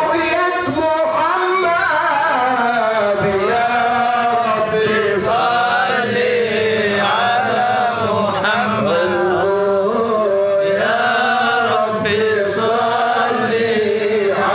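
Male munshid singing a nasheed, a long melismatic line that glides and ornaments without break, over a steady low held tone.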